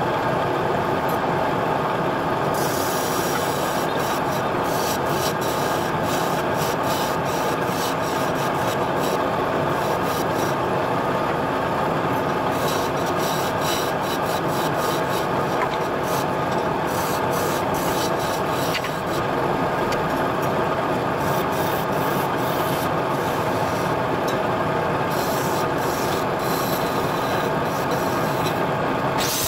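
Wood lathe running, its motor giving a steady hum, while a hand-held turning tool scrapes the spinning wooden blank, a continuous rasping broken by frequent short, higher scratches.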